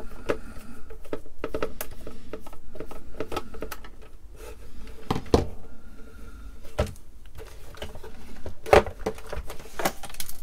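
Clicks, taps and knocks of hard plastic as the Atari 410 program recorder's plastic case is unscrewed, lifted and worked apart by hand, with two sharper knocks about five and a half and nine seconds in.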